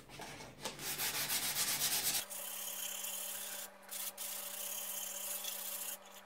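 240-grit sandpaper rubbed by hand over a birch plywood panel in quick back-and-forth strokes. After about two seconds it changes to a steadier, even rubbing with a couple of brief breaks. This is light sanding to knock down grain that was raised by wetting the wood with water.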